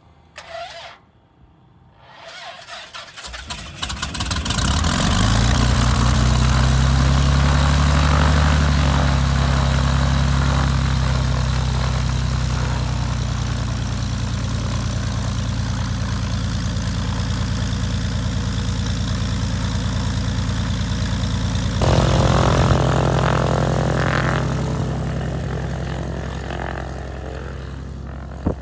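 Piper Cherokee Six 300's six-cylinder piston engine cranking on the starter for about a second, catching about four seconds in and settling into a steady idle. Near the end the engine note picks up briefly, then fades as the plane taxis away.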